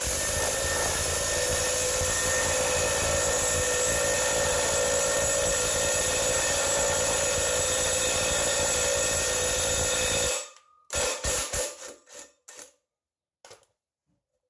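Cordless impact wrench running continuously for about ten seconds, then stopping abruptly, followed by a few short bursts. It is spinning a lug nut down against a stack of washers to pull a new wheel stud into its drilled hole in a Ford rear axle flange.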